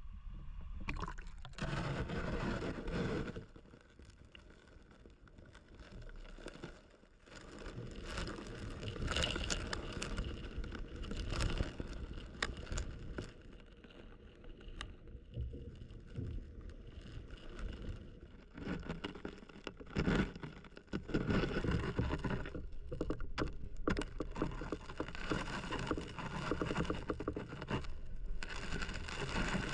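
Small mountain stream's water rushing and splashing, swelling and fading in loudness, with scattered scrapes and knocks.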